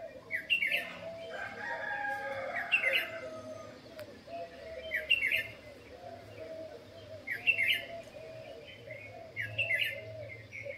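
Birds calling, with a short chirping call repeated about every two and a half seconds over steadier background calling.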